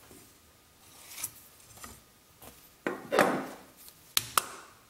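Pencil scratching short lines along a steel combination square on the end grain of a maple log, with two sharp metal clicks of the square near the end.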